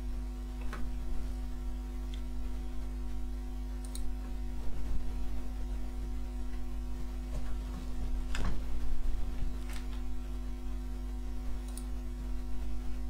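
A steady electrical hum with about half a dozen scattered clicks of a computer mouse and keyboard.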